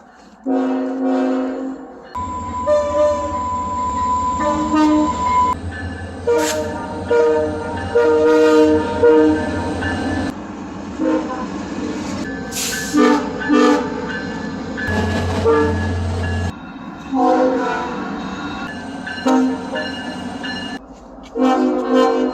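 Train horns, one recording after another with abrupt cuts between them: multi-note air-horn chords blown in short and long blasts. Under some of the blasts there is a low rumble of the train.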